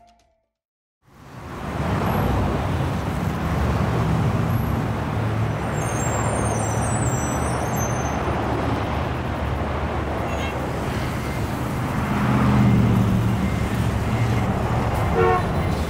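Street traffic of motor scooters and a city bus, a steady low rumble that fades in after about a second of silence. A couple of short horn toots sound near the end.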